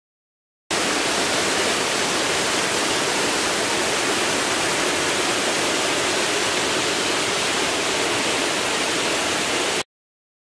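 Mountain stream rushing over rocks, a steady hiss of water that starts abruptly just under a second in and cuts off abruptly near the end.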